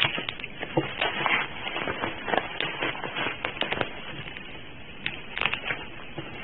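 Bubble wrap around a parcel crinkling and crackling as it is handled and cut open with a knife: irregular sharp crackles and clicks, a louder cluster about five seconds in.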